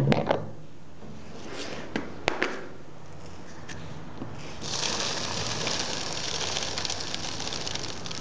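A few light clicks and knocks in the first seconds, then a steady hiss of gas from about four and a half seconds in, coming from a homemade plastic bottle bomb as it swells under pressure.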